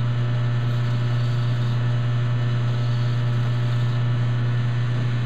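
Metal lathe running at steady speed with a loud low hum while a hand file chamfers the edge of the spinning Delrin workpiece. The hum stops suddenly with a click at the very end.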